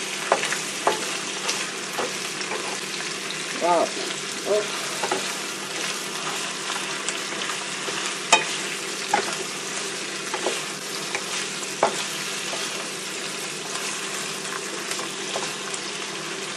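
Onions and smoked fish sizzling in hot oil in a non-stick wok, stirred with a wooden spatula that clicks and knocks against the pan now and then.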